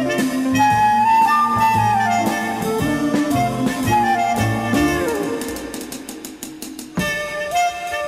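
Background music: a jazz tune with wind instruments carrying the melody, changing abruptly about seven seconds in.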